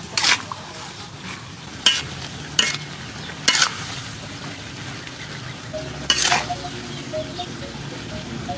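Razor clams stir-frying in a hot pan: a steady sizzle broken by about five sharp scrapes and clatters of a metal spatula against the pan as they are tossed.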